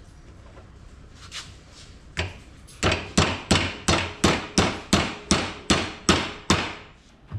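Ball-peen hammer striking a part clamped in a bench vise: two light taps, then from about three seconds in a quick run of about fourteen sharp blows at three or four a second, each ringing briefly.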